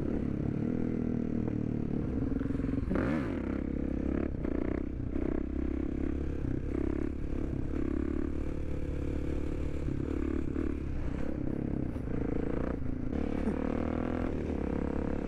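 Supermoto motorcycle engine running while riding, its pitch rising and falling with the throttle, over a steady low rumble, with a few brief clattering knocks.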